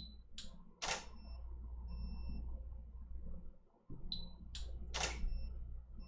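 Two firings of a Pluto valve water-drop rig, about four seconds apart. Each begins with a short high beep, followed by two sharp clicks about half a second apart from the valve's solenoid and the camera shutter, the second click louder. Faint high tones follow each second click.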